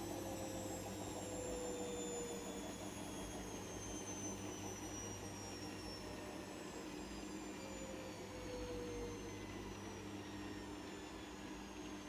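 Servis washing machine winding down from its high-speed spin: a motor whine that falls slowly in pitch over a steady hum as the drum slows.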